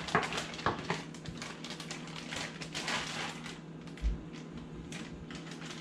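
Plastic zip-top bag crinkling and rustling, with small clicks of a metal spoon, as pieces of egg-washed fish are spooned into a bag of fish-fry breading. A soft thump about four seconds in.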